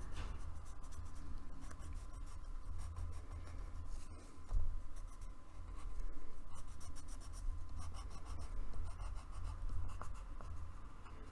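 Pencil scratching on paper in short, uneven strokes as small rounded shapes are drawn, over a faint low hum.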